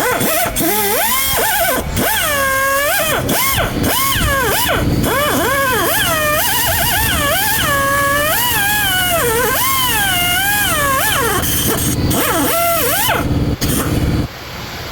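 Background music with a melody that slides and wavers widely in pitch over a steady accompaniment.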